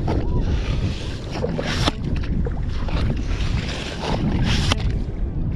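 Wind rumbling on the microphone, with several short hissing, squelching bursts from a ghost shrimp pump sucking up and spitting out wet sand and mud.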